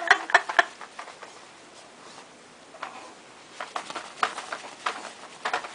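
Light scattered taps and rustles of a young baby flailing his arms and legs against the surface he lies on: a quick cluster at the start, a short lull, then more irregular taps through the second half.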